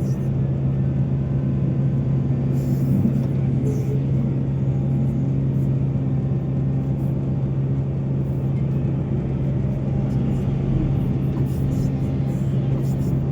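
Heavy diesel engine of mining machinery running steadily at a constant pitch, a low even drone.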